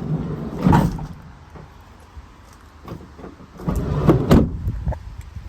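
Sliding side loading door of a Ford Transit Connect van being worked: a sharp clunk under a second in, then a run of rattling knocks ending in a loud slam about four seconds in.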